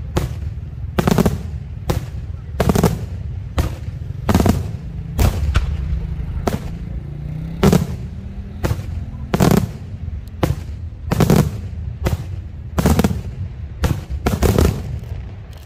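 Daytime aerial fireworks shells bursting in quick succession: loud sharp bangs about once a second, with a low rumble in between.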